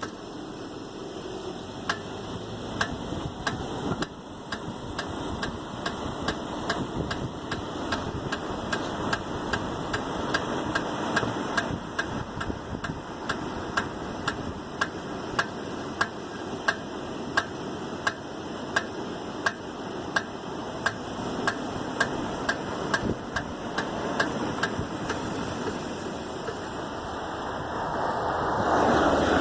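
Regular clicking, about two clicks a second, from the rear driver's-side wheel and brake of a 1999 Toyota Avalon, over a steady running hum that grows louder near the end. The noise started after two new rear tires were mounted, and the owner takes it for brake noise.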